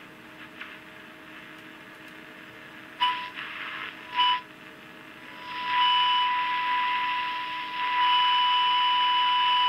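Small transistor radio speaker hissing while its medium-wave superhet oscillator trimmer is adjusted onto a 1300 kHz test signal. A steady high test tone blips in briefly twice, then comes through with rising hiss from about halfway and holds steady and loud to the end as the radio tunes onto the signal.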